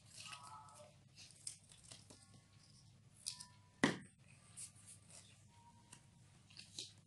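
Cardboard-tube pieces and paper being handled on a tabletop: scattered rustles and scrapes, with one sharp knock about four seconds in.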